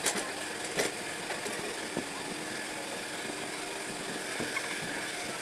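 An engine running steadily at low revs, with a few short sharp knocks.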